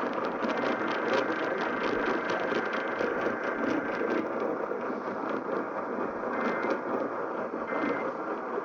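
Radio receiver static: a steady rough hiss with crackle, and a faint steady tone under it that stops about halfway through. Near the end, two short bursts of warbling data tones cut through the static, timed like the EAS end-of-message code that closes an alert.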